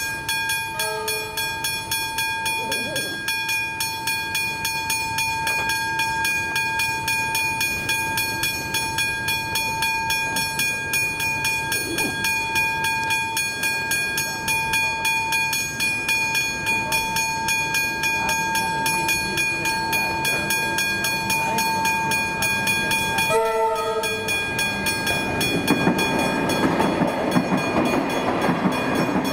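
Westinghouse hybrid electronic level-crossing bells ringing rapidly and continuously. A train horn sounds briefly about a second in and again later. In the last few seconds an electric suburban train rolls onto the crossing and its rumble rises over the bells.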